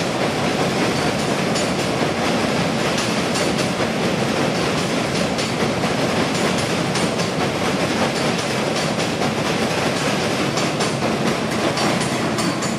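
Passenger train coaches rolling across a steel truss bridge: a steady rumble, with the wheels clattering over the rail joints.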